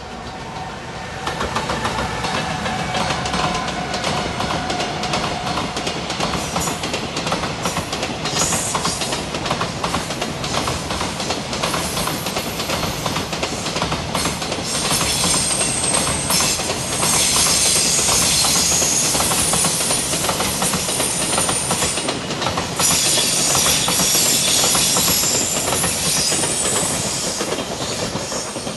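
Freight train hauled by an EF210 'Momotaro' electric locomotive passing close by. Its wagons roll past in a loud, continuous rapid clatter of wheels over the rail joints, starting about a second in. A thin high-pitched squeal runs above the clatter through the second half.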